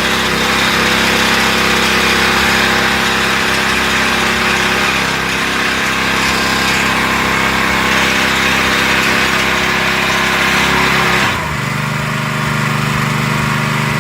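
Loncin small gas engine of a 22-ton log splitter running steadily, with a dense, busier sound over most of the stretch. About eleven seconds in it dips and settles into a smoother, lower steady drone.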